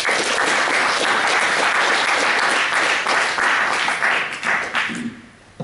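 Audience applauding, many hands clapping in a dense patter that fades out near the end.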